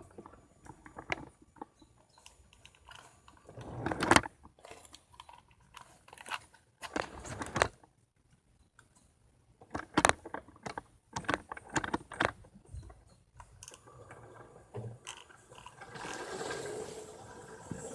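Plastic Lego bricks and track pieces being handled and snapped together: scattered crunchy clicks and rattles in several short bursts. A steady whirring noise starts near the end.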